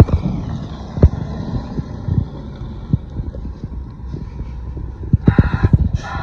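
Diesel heavy equipment running, with scattered knocks and wind on the microphone; about five seconds in, a pulsing whine starts, repeating roughly once a second.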